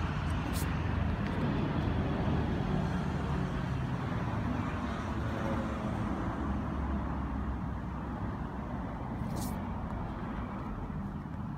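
Steady rumble of road traffic in the open air, easing off slightly toward the end, with two short crisp ticks, one just after the start and one near the end.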